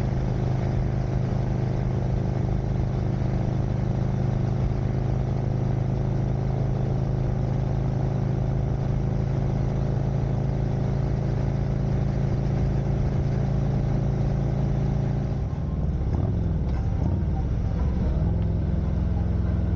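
Harley-Davidson Street Glide Special's V-twin running steadily at highway speed, with wind noise. About fifteen seconds in the throttle is rolled off: the engine note drops and wavers for a couple of seconds as the bike slows, then settles into a lower steady note.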